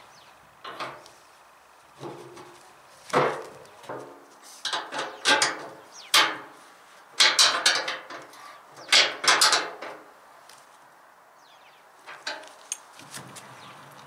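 Metal clanks and clinks as a wheelbarrow wheel's axle is set back into the steel frame brackets and the fixings are worked with a spanner: a run of sharp knocks and rattles, thickest through the middle and thinning out near the end.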